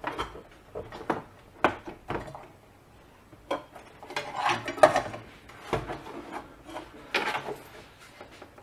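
Handling noise of an ozone plate and its connector block being worked by hand: irregular clicks, taps and scrapes as the block is pushed and adjusted on the plate, busiest around four to five seconds in.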